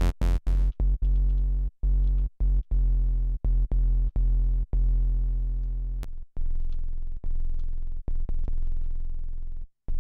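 Behringer Model D analog synthesizer playing a very subby low sine-wave sub bass from its third oscillator alone: a run of separate notes, some short and some held a second or two, with brief gaps between. The tone changes about six seconds in as a knob on the oscillator bank is turned.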